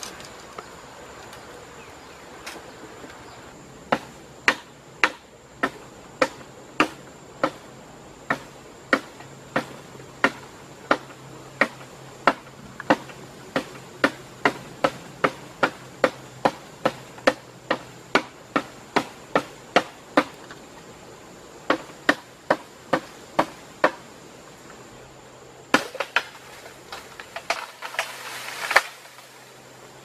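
Repeated sharp chopping strikes on bamboo, about two a second, starting about four seconds in. After about twenty seconds they thin out, and there is a short flurry near the end.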